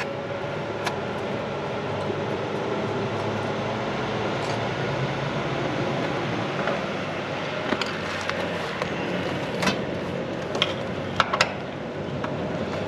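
Outdoor air-conditioner condenser unit running with a steady hum, on a newly fitted replacement run capacitor. Several sharp clicks come in the second half.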